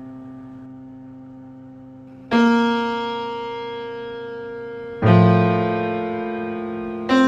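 Slow instrumental music. A held chord fades away, then new chords are struck about two and a half seconds apart, three in all, each ringing on and slowly dying away.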